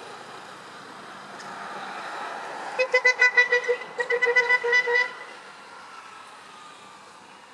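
A vehicle horn tooting in two quick runs of short rapid beeps at one steady pitch, about three seconds in, over the sound of passing traffic.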